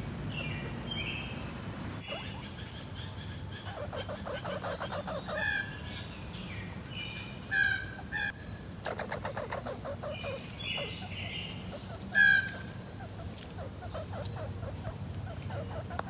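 Red squirrel calling: two bouts of rapid chattering rattle, about four and nine seconds in, mixed with short high chirps. Three sharp calls, about five, seven and a half and twelve seconds in, are the loudest sounds.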